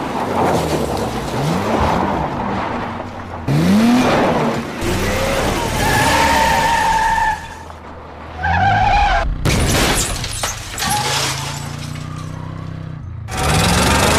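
Demolition derby cars revving and skidding with tyres squealing, broken by several sudden crashes of crunching metal and breaking glass as the cars ram each other. The engines rise and fall in pitch, and the crashes come about three and a half seconds in, past nine seconds and near the end.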